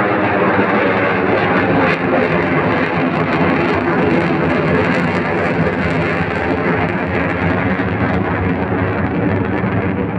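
HAL Tejas fighter's single turbofan jet engine, a loud, steady roar with a droning hum running through it, as the jet flies away overhead.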